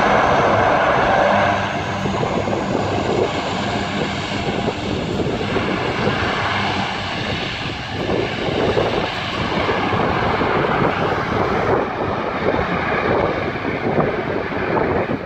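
Four turboprop engines of an RAAF C-130 Hercules at takeoff power, a steady drone as the aircraft rolls away down the runway. The drone drops in level about a second and a half in, then holds steady.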